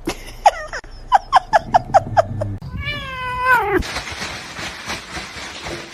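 A cat gives a quick run of about seven short chirping mews, each dropping in pitch, then one long meow that rises and falls. A stretch of noise without pitch follows.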